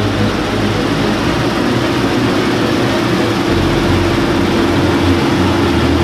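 Claas Lexion 550 combine harvester running steadily while cutting and threshing wheat: an even mechanical drone with a held mid-low tone over a rushing noise.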